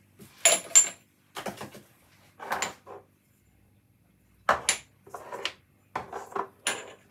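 Clinks and knocks of spice containers being handled and set down on a kitchen worktop: a series of short, sharp taps, the loudest pair about half a second in with a brief high ring.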